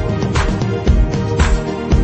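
Background music with a steady drum beat, a low kick about twice a second and a sharper hit about once a second.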